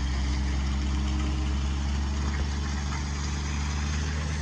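Diesel engine of a Kenworth T800 logging truck idling steadily.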